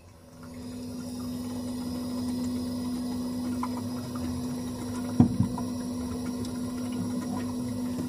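Refrigerator motor running with a steady hum. A single knock about five seconds in.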